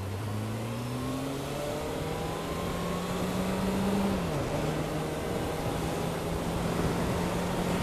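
Suzuki Bandit's inline-four motorcycle engine pulling harder, its note climbing for about four seconds, then dropping at an upshift and running steady in the next gear. A steady rush of wind and wet-road tyre noise runs under it.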